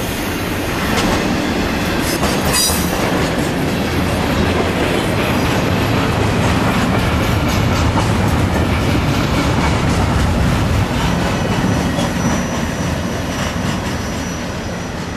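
Florida East Coast intermodal freight cars rolling past, their wheels rumbling and clacking steadily over the rail joints. The sound eases off over the last few seconds as the end of the train moves away.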